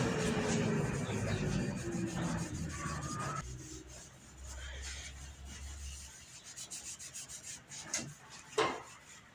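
A cloth rubbing over a wooden cutting board, working lard into the wood as a finish, in short repeated scratchy strokes with a couple of sharper knocks near the end. A falling engine-like drone fades out over the first three seconds.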